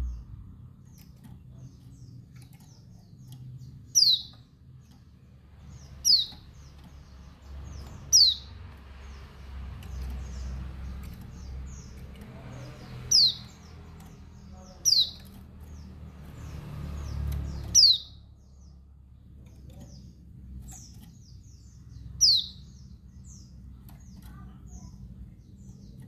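Female white-eye (pleci, Bali yellow-breasted type) calling: seven sharp, high, downslurred call notes a couple of seconds apart, with fainter high chirps between them. This is the female's call used to rouse male white-eyes.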